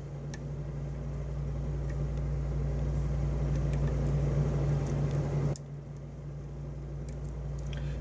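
A steady low machine hum with a rushing noise over it that stops suddenly about five and a half seconds in, and a few faint sharp clicks from lock picks working in a pin-tumbler cylinder.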